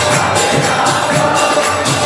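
Live kirtan: a crowd chanting together over a steady, fast percussion beat of about four strikes a second.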